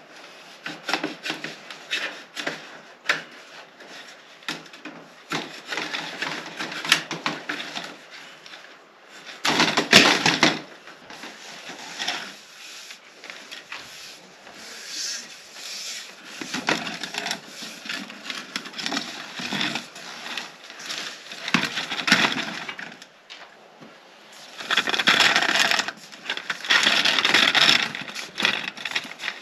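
Black corrugated plastic drain pipe being handled and pulled into place, its ribbed plastic rubbing, crackling and knocking irregularly, with louder stretches about ten seconds in and near the end.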